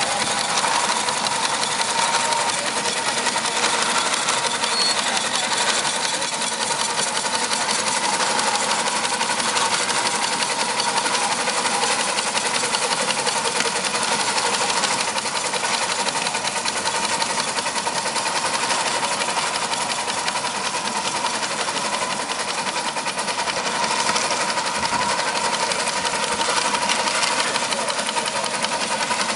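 Third-scale Case steam traction engine running under way with a fast, even rhythm of exhaust beats. Its governor can be heard lifting and carrying the load as the engine drives.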